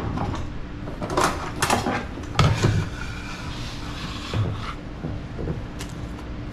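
Metal bench scraper knocking and scraping on a wooden countertop as diced tomatoes are scooped up with it: a few sharp knocks, then a stretch of scraping from about three to nearly five seconds in.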